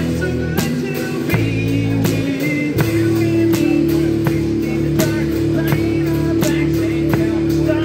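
Live rock music played on amplified instruments: a steady drum-kit beat with bass drum, sustained guitar chords and a singing voice.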